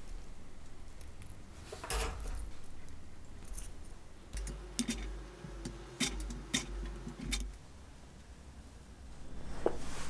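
Light clicks and taps of a wooden spoon as sweet corn kernels are spooned onto cookies on a baking tray. There is one tap about two seconds in, then a run of sharp clicks in the middle.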